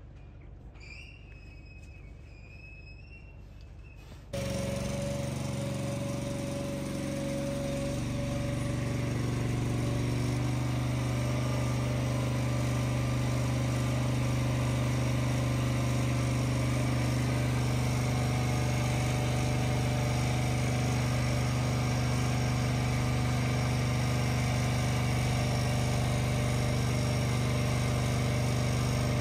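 Birds calling faintly for the first few seconds. About four seconds in, a loud, steady motor hum from the machinery of a calf-milk feeding trailer cuts in as milk is pumped through a hose into the calves' trough. Its pitch shifts a little at first and then holds even.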